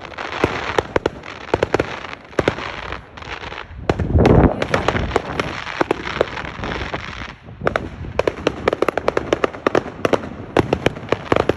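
Fireworks going off: rapid strings of sharp bangs and crackles, with a deeper, louder boom about four seconds in and a brief lull past the middle before the crackling picks up again.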